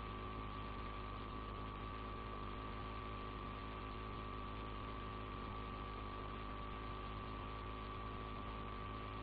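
Steady electrical hum with hiss and a faint steady high whine: the recording's background noise floor, unchanging throughout.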